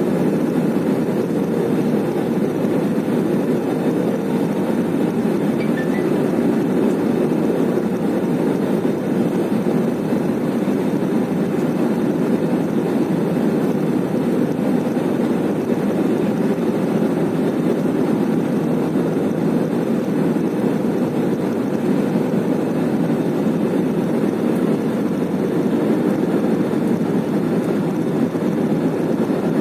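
Steady engine and airflow rumble inside a jet airliner's cabin during landing, with a faint steady whine above the roar.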